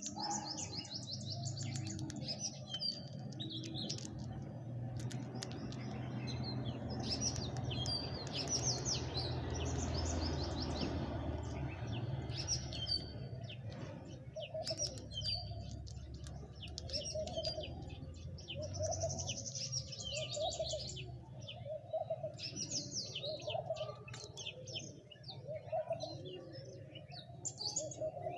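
Many small birds chirping rapidly, with pigeons cooing in a repeated low call from about halfway through. A steady low rumble runs underneath.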